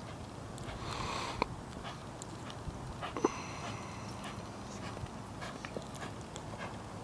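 Horse loping in arena sand: soft, muffled hoofbeats over a low rumble, with a short breathy rush about a second in and a sharp click about three seconds in.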